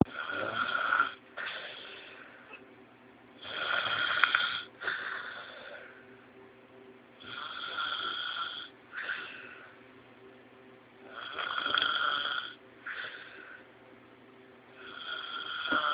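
A man snoring loudly in his sleep in a slow, steady rhythm, about one breath every four seconds. Each breath is a long, loud snore followed by a shorter, softer one.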